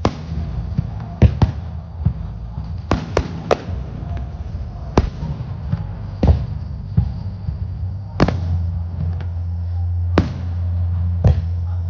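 Aerial fireworks bursting: about a dozen sharp bangs at uneven intervals, some close together, over a steady low hum that grows louder in the last few seconds.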